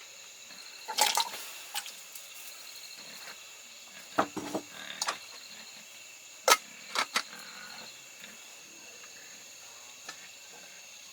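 Pots and cooking utensils knocking and clattering in a few short bursts, three sharp knocks in the loudest one about two-thirds of the way through. Behind them is a steady chorus of insects.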